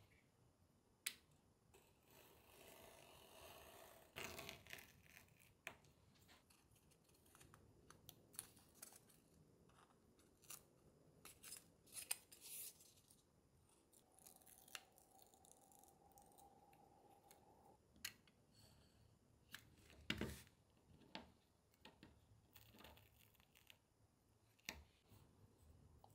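Quiet handcraft sounds: a utility knife scraping along a ruler as it cuts a thin black board strip, then, about halfway through, a short tearing as a paper backing is peeled off the strip, with scattered clicks and taps of tools and material being handled.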